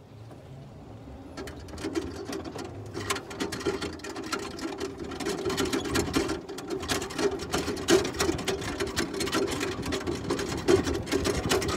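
Golf cart buggy running across a bumpy lawn: a steady motor drone with dense rattling of the cart body and loose things in the dash, growing louder over the first two seconds.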